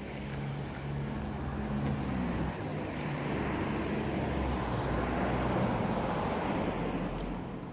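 A vehicle passing on the street, its sound swelling to a peak a little past the middle and then fading, with a low engine or motor hum.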